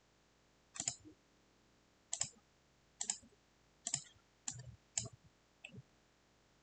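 Computer mouse clicking: about seven short clicks at uneven gaps of roughly a second, with near silence between them.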